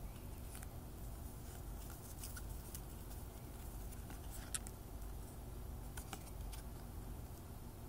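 Stiff die-cut cardstock cards handled by hand, fanned and slid against each other: scattered light clicks and rustles, the sharpest about four and a half seconds in, over a low steady hum.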